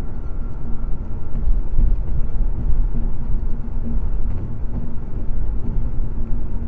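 Steady low road noise of a car driving at freeway speed, heard from inside the cabin.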